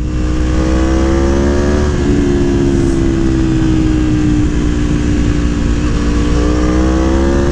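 Aprilia Tuono V4 1100's V4 engine pulling hard under throttle while riding, its note climbing, with a gear change about two seconds in, then a dip and another climb near the end. Heavy wind noise on the microphone runs underneath.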